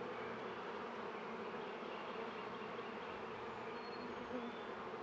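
Honeybees buzzing in a steady, even hum around an opened Langstroth hive during a frame inspection. It is the sound of a calm colony.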